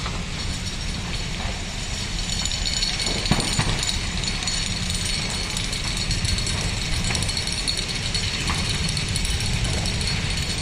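Large building fire burning, a steady crackling hiss over a low rumble.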